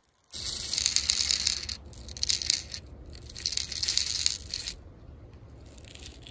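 Copper-coated steel BBs rattling out of a plastic bottle's spout into a Daisy Powerline 426 BB pistol's magazine, in three spells of rapid clicking with short pauses between.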